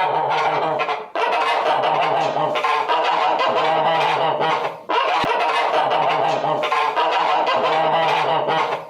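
A large group of birds calling over one another in a dense, continuous din, broken by two brief dips.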